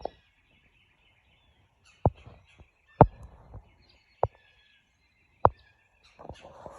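Birds chirping in the background, broken by four sharp, loud knocks at irregular intervals of about a second.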